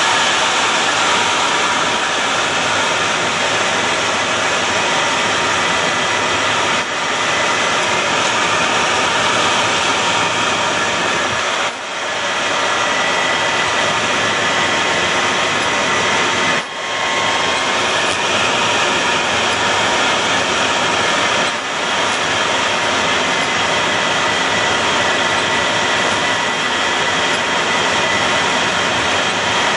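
F-14A Tomcat's TF30 jet engines running at low power while the jet taxis, heard from inside the closed cockpit as a loud steady rush with a thin whine. The level dips briefly about every five seconds.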